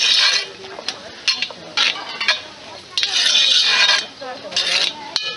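Large metal spoon scraping and stirring diced vegetables in a cast-iron Dutch oven, with clinks of the spoon against the iron. The scrapes come in several strokes; the longest starts about three seconds in and runs about a second.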